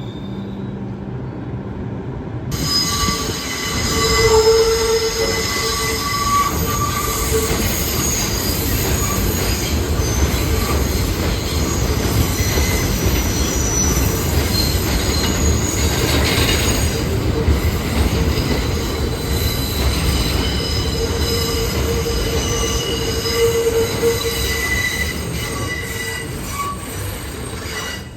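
New York City subway train (R142 cars) running through the station with its steel wheels squealing on the rails: a heavy steady rumble with several high squealing tones over it, coming in abruptly about two and a half seconds in.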